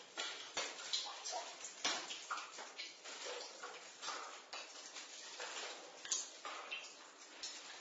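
Water drops falling in a basement, several a second at an uneven pace and uneven in strength, some landing with a short pitched plink.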